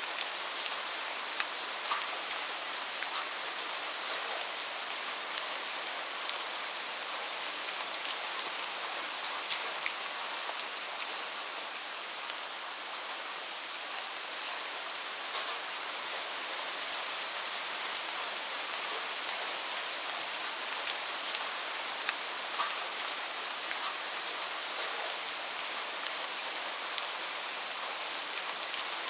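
Steady rain falling, a continuous hiss with many sharp individual drops pattering on surfaces close by.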